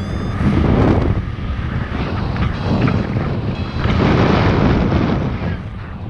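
Wind rushing over the microphone during a paraglider flight, gusting louder and softer every second or two. A paragliding variometer gives short rising beeps at the start and faintly again about four seconds in, its climb tone.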